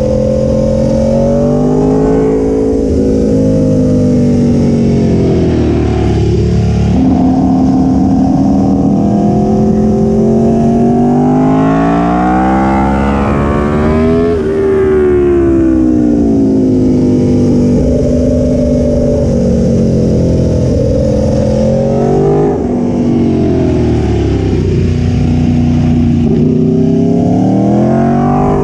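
Aprilia Tuono V4 1100 Factory's V4 engine heard from on board, its pitch rising and falling again and again as the bike accelerates and slows through a run of corners. About halfway through it climbs to a high-revving peak, then drops away sharply.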